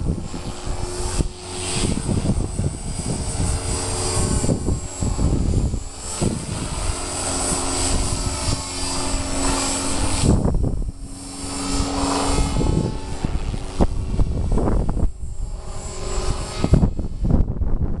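Walkera V450 electric RC helicopter flying 3D aerobatics: the motor and rotor whine shifts up and down in pitch as the blades load and unload, with blade swish. Gusty wind buffets the microphone.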